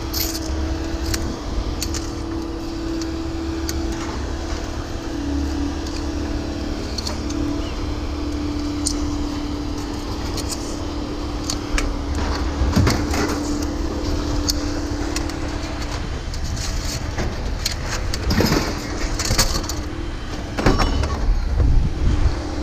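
A vehicle running, with a low rumble and a steady hum that stops about sixteen seconds in. Scattered knocks and clatter follow, more of them near the end.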